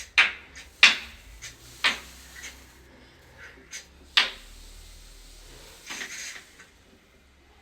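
Several sharp knocks at uneven intervals, four of them loud, with a few fainter taps and a short scraping rustle near the end.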